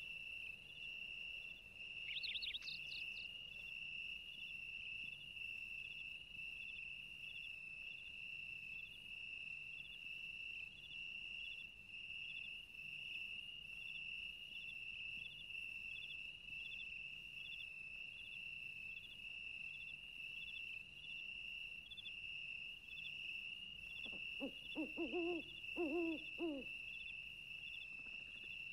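Wild ambience: a steady high insect trill with a faint regular pulse, a brief bird chirp about two seconds in, and a few low hooting bird calls near the end.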